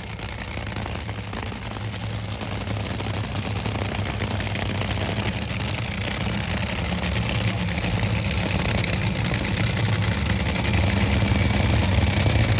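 Drag racing car's engine idling with a steady low drone, growing slowly louder.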